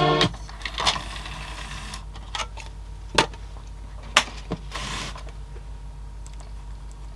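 Music from the CD player cuts off just after the start. Then come a handful of sharp clicks and knocks and brief rustles as the disc tray of the opened Sony mini CD player is handled and the disc is lifted out, over a steady low hum.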